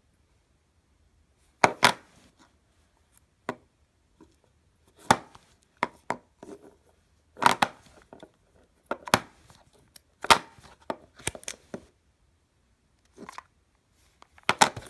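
Hard clear-plastic Apple EarPods case handled and turned over in the hands, giving about a dozen sharp plastic clicks and cracks at irregular intervals, some in quick pairs.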